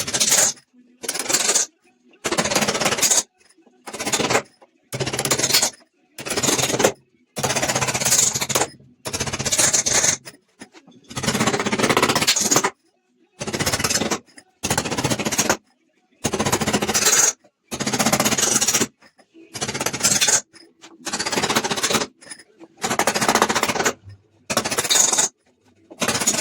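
A handheld power tool run in about twenty short bursts of a second or so each, stopping and starting abruptly with silent gaps between.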